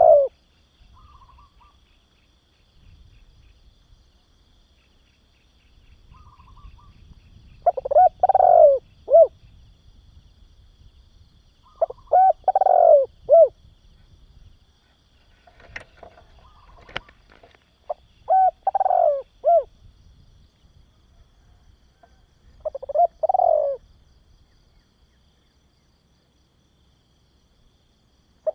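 Spotted dove cooing: four separate phrases of three or four low coo notes each, several seconds apart.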